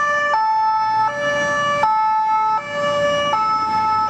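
Swiss ambulance's two-tone siren alternating between a high and a low note, switching about every three-quarters of a second, with road traffic rumbling underneath.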